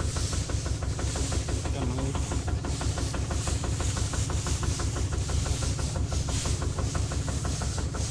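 Tractor's diesel engine running steadily at constant speed with a rapid, even beat, with a hiss above it.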